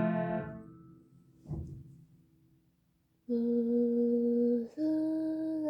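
A piano chord dies away, then after a short pause a child's voice sings long, steady held notes, stepping up in pitch partway through.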